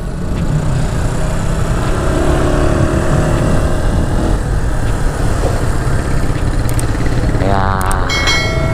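Small-displacement motorcycle engine running steadily under way, with wind and road noise. Near the end, a click and a ringing chime from a subscribe-button sound effect.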